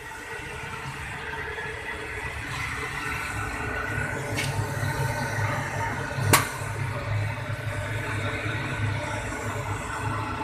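Rotary rack oven running: its burner and blower give a steady low rumble. There is a sharp click about six seconds in.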